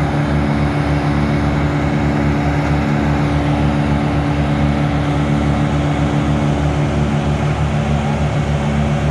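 Engine of a homemade branch-grinding machine (a wood chipper) running steadily: a loud, constant low drone with a regular pulse.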